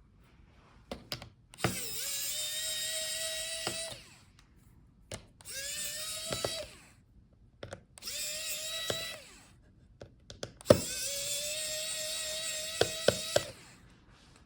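Electric precision screwdriver spinning out small laptop screws in four separate runs, each whine rising briefly as the motor spins up and then holding steady, with small clicks of the bit and screws between runs.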